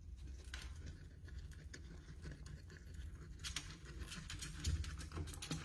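Faint scattered ticks and light scratching of a woodchuck's feet moving inside a plastic tube, over a low steady rumble.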